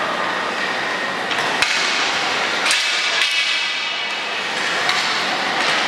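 A few sharp knocks of hockey sticks striking the ball and each other in a unicycle hockey game, over the steady echoing noise of a large hall. The loudest knock comes a little over a second and a half in.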